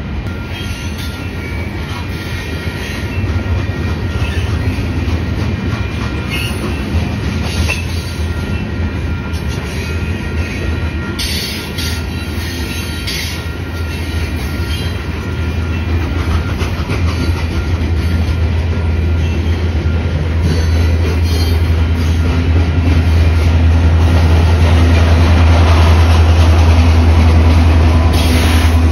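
Freight cars rolling past, their wheels clacking over the rail joints with some wheel squeal. Over the last ten seconds a steady low drone grows louder as the trailing CN SD70M-2 diesel locomotive, with its EMD 710 engine, approaches and passes.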